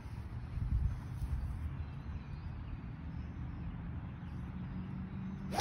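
Low, uneven wind rumble on the microphone while the golfer stands over the ball, ending in one sharp crack as a driver strikes a teed golf ball.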